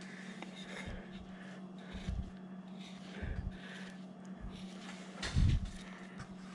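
Number 9 carving gouge cutting chips from a hand-held wooden carving blank: faint, short scraping cuts over a steady low hum, with a short low puff about five seconds in.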